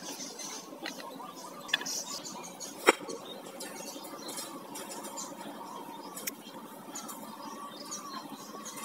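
Faint handling noise: a few light clicks and one sharp tap about three seconds in, over a low steady background.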